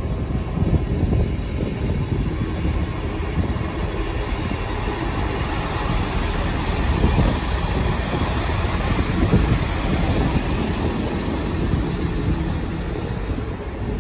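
Diesel multiple unit passenger train running past on the rails, the engine and wheel noise swelling as it passes close about halfway through, with a few knocks from the wheels.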